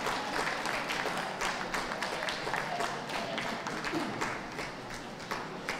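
Audience clapping, a dense patter of many hands that thins out and fades toward the end.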